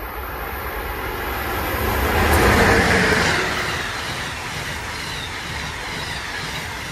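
Amtrak Northeast Regional train with stainless-steel Amfleet coaches passing through the station at speed without stopping. The rush of the train swells to its loudest about two and a half seconds in as the head end goes by, then the coaches' wheels rumble steadily on the rails until it begins to fade near the end.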